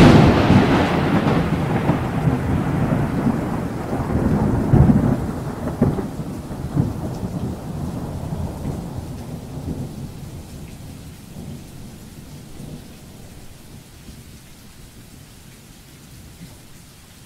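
A sudden loud thunderclap, then thunder rumbling on with a few swells and fading away over about ten seconds, over a faint steady hiss of rain.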